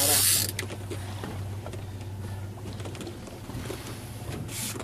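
Penn big-game reel working under load during a fight with a bluefin tuna: small mechanical clicks of the reel over a steady low hum. A loud hiss dies away just after the start, and a short hiss comes near the end.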